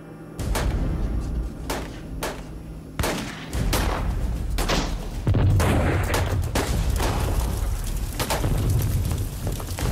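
Gunfire: single shots at irregular intervals, growing denser from about three and a half seconds in, with a low rumbling boom underneath.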